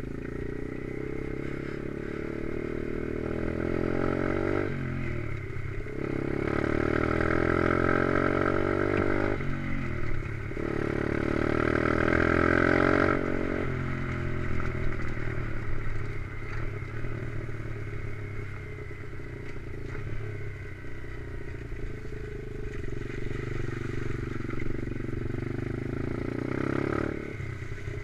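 Stomp pit bike's 125cc Lifan single-cylinder four-stroke engine under load, rising in pitch as it pulls through the gears. The pitch drops briefly at gear changes about five and ten seconds in. From about fourteen seconds it runs at a lower, steadier speed, with a short rise near the end.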